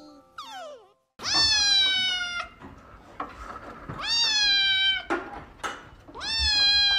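Kitten meowing three times, each meow long (about a second), rising at the start and then held with a slight fall at the end.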